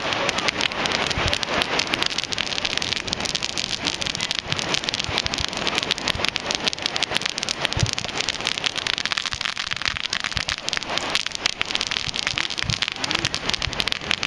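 Fireworks crackling: a dense, continuous spatter of sharp pops, with a couple of deeper thumps about eight seconds in and again near the end.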